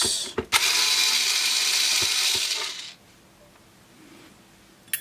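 Cordless electric screwdriver with a Torx T10 bit running as it backs out a countersunk case screw. It stops about three seconds in, and a sharp click follows near the end.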